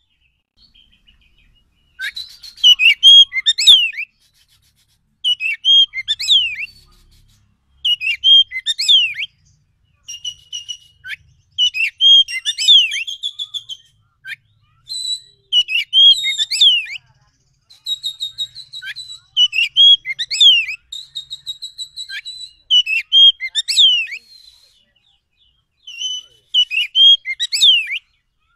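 Wild Oriental magpie-robin (kacer) singing: a string of loud phrases made of sharp sweeping whistles and chips, some with held high notes, each phrase a second or two long with short pauses between.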